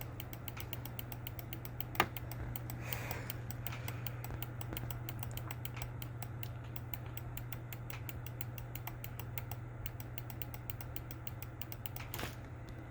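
Computer mouse button clicked rapidly and repeatedly, several light clicks a second, with one sharper, louder click about two seconds in. A low electrical hum runs underneath.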